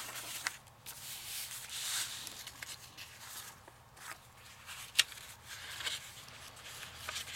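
Paper pages and cardstock rustling and sliding as they are handled and laid on a table, with a sharp tap about five seconds in.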